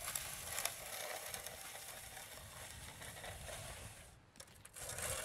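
A small pole-mounted Fresno trowel scraping steadily over the surface of fresh, stiffening concrete. It stops briefly about four seconds in and starts again near the end.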